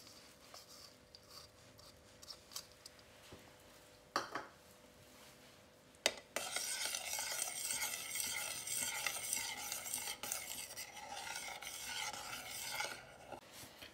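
A metal spoon stirring thick egg-and-lemon chicken soup in a stainless steel pot, working chopped parsley in. The first six seconds are faint, then a sharp click, then about seven seconds of steady, rhythmic swishing and scraping that stops shortly before the end.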